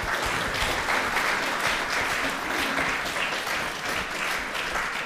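Audience applauding: many people clapping steadily, the clapping thinning out near the end.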